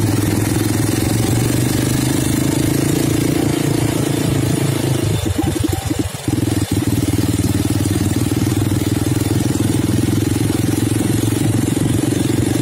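Rental ATV's small engine running steadily close by, holding one even pitch like an idle, with a brief flutter a little past halfway.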